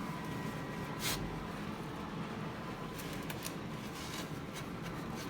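Quiet rustling and handling noise from working the snowblower drive's belt-tension lever under the garden tractor, with one sharp click about a second in and a few light ticks around three seconds.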